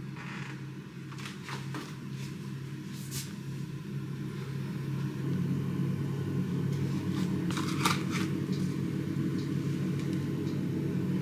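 Cardboard box and plastic packaging rustling and crackling in several short bursts as a frozen breaded vegan fish fillet is unpacked, over a steady low hum.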